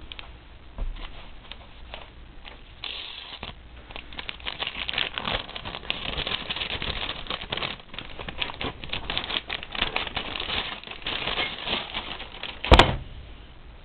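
Rapid rustling and clicking that grows denser from about four seconds in, then one sharp, loud knock near the end.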